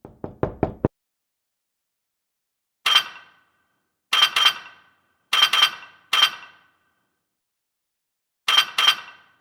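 Four quick taps in the first second, then bright clinks with a short ring after each, about eight in all, mostly in pairs.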